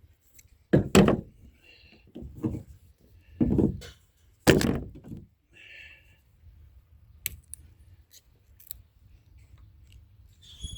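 A series of loud, short thumps and knocks of objects being handled, followed by a few sharp clicks.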